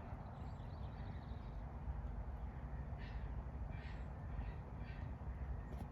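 Bird calling outdoors: a short run of four or five harsh calls in quick succession about halfway through, over a steady low rumble.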